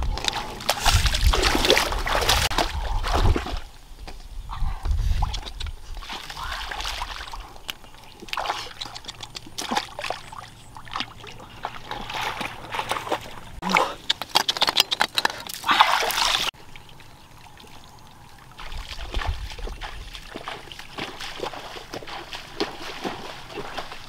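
Muddy shallow water splashing and sloshing as someone wades through it, in irregular bursts. It is loudest in the first few seconds and drops off abruptly about two-thirds of the way through.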